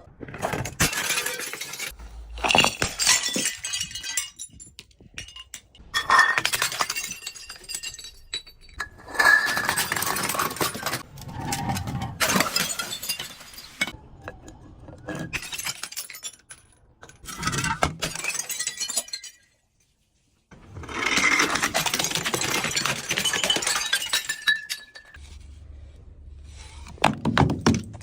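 Glass bottles being crushed, crunching and shattering in repeated bouts of one to three seconds with short pauses between them.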